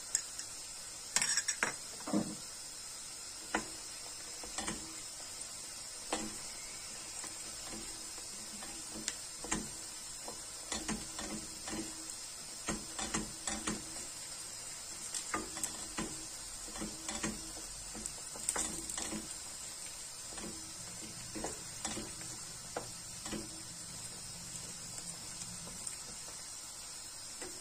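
Chopped onions and garlic sizzling in a stainless steel frying pan as red pepper paste is stirred in. A utensil clicks and scrapes against the pan at irregular intervals over a steady sizzle.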